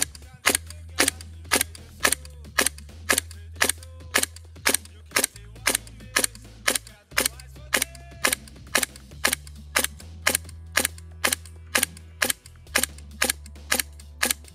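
GHK Steyr AUG gas blowback airsoft rifle fired in semi-auto, shot after shot at a steady pace of about two a second, each shot a sharp crack with the bolt's blowback. It is emptying a magazine to test how many shots one gas fill gives.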